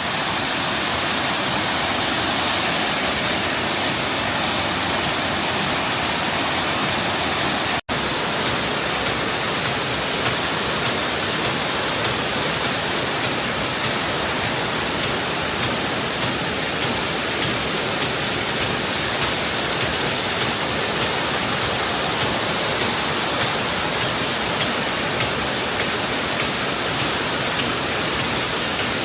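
Waterfall with a steady, loud, even rush of falling water. The sound drops out for an instant about eight seconds in, then carries on unchanged.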